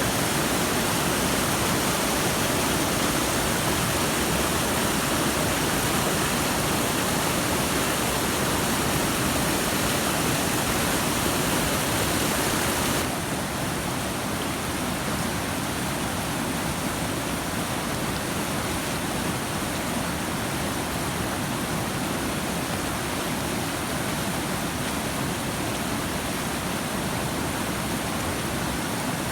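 Steady rush of running water, like a stream or small waterfall. It drops abruptly to a slightly quieter, duller rush about thirteen seconds in.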